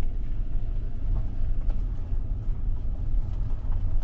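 Low, steady rumble of a car driving slowly over a rough dirt lane, heard inside the cabin, with a few faint ticks here and there.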